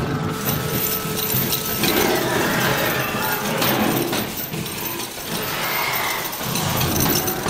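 Pneumatic animatronic werewolf prop thrashing on its heavy steel frame: a continuous loud mechanical clatter and rattle as its air cylinders shake the arms and body.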